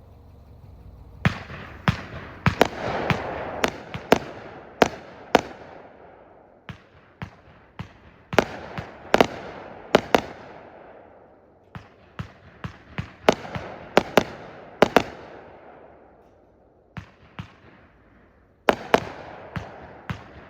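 Ghost Willows 35-shot consumer firework cake firing: sharp bangs come a few at a time, in irregular volleys separated by short lulls, and each bang trails off in a fading echo.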